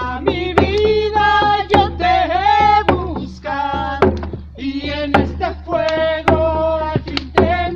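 Ceremonial chant sung by voices, with a steady drum stroke about once a second.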